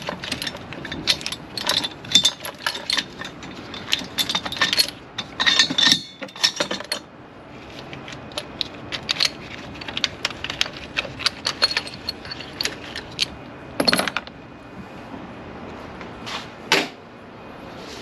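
Steel chains and hooks clinking and rattling as they are handled and unhooked from an engine support bar. The clinks come thick and fast for the first several seconds, then more sparsely, with a couple of sharper clanks in the second half.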